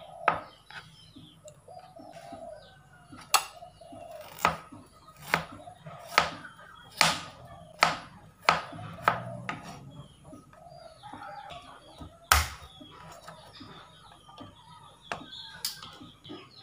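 A kitchen knife chopping tofu on a plastic cutting board: a run of sharp knocks, about one a second, then a single loud knock a few seconds later. Birds call faintly in the background.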